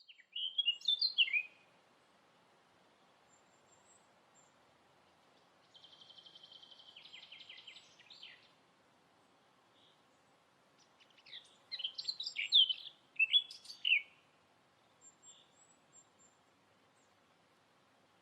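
Songbirds singing outdoors: quick warbled phrases near the start and again about two-thirds through, with a buzzy trill in between and a few soft chips near the end, over a faint steady background hiss.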